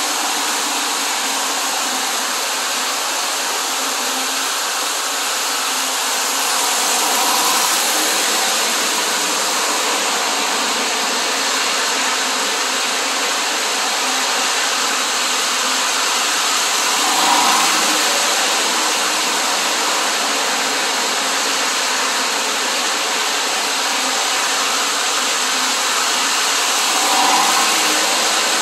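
Lionel toy train running on its track: the Illinois Central GP9 locomotive's electric motor whirs steadily and the cars roll along the rails. The sound swells briefly about every ten seconds as the train comes round past the camera.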